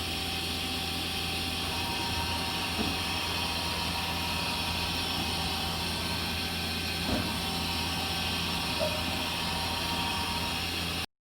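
Yamazaki Mazak Quick Turn Nexus 250 CNC lathe running: a steady machine hum with several steady tones, and a few faint knocks.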